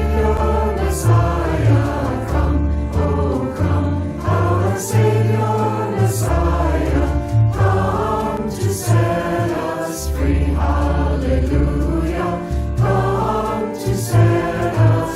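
A choir singing a hymn over instrumental accompaniment with deep, sustained bass notes.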